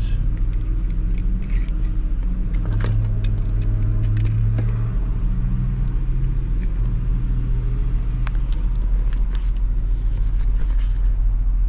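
A steady low engine rumble with a hum that shifts in pitch several times, mixed with scattered clicks and knocks of things being handled.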